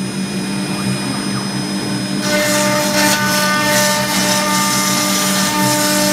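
greenBull CNC router's spindle running at 18,000 RPM as a 1/4-inch single-flute Onsrud end mill cuts acrylic sheet: a steady whine with a hiss of cutting over it. The high hiss drops away for about the first two seconds, then returns.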